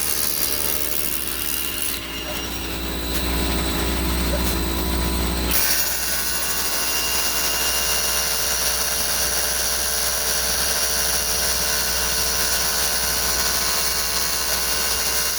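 Power tool motor running steadily at the concrete slab. Its sound shifts about two seconds in, is heavier until about five and a half seconds in, then carries on steadily.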